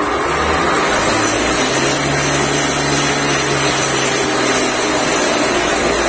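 Vidhata JF 2D chaff cutter and grinder running at full speed on its 3 HP single-phase electric motor: a loud, steady whirring with a low hum.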